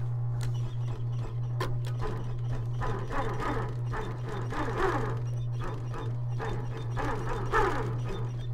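Adler 373 industrial sewing machine with its motor humming steadily, stitching in short runs about three seconds in and again near the end.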